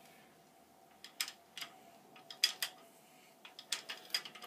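Metal clicks and clinks of a Ridgid 00-R hand ratchet pipe threader as its die head is fitted onto the oiled end of a black iron pipe and the ratchet handle is taken up: about ten short, sharp clicks in irregular small groups.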